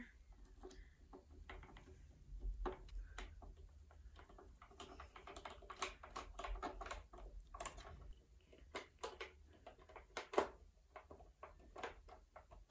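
Hand screwdriver driving screws through the feet into the plastic base of a turntable: a string of faint, irregular clicks and ticks from the driver tip and screw.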